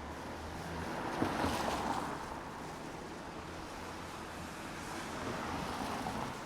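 City street traffic noise: a steady rushing hum that swells twice, about a second in and again near the end, as vehicles pass.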